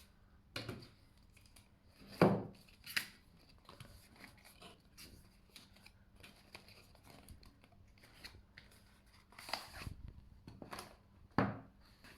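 Smartwatch packaging being handled and opened: irregular rustling, scraping and clicking of the box and wrapping, with a few louder handling sounds at about two, three, nine and eleven seconds in.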